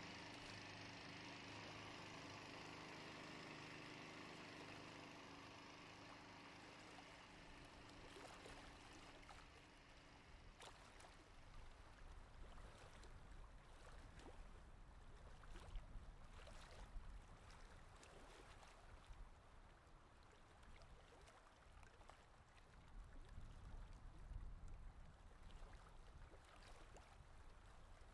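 Quiet water lapping and gurgling around a small wooden boat, with a few faint knocks and taps from about ten seconds in.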